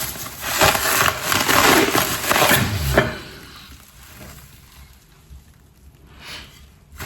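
Packing material crinkling and rustling as items are unwrapped, loud for about three seconds, then much quieter with one faint rustle near the end.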